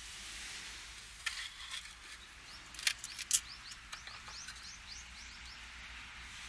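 A bird calling a rapid run of short rising chirps, about five a second, for around three seconds, over a steady hiss. Several sharp clicks sound in the first half, the loudest about three seconds in.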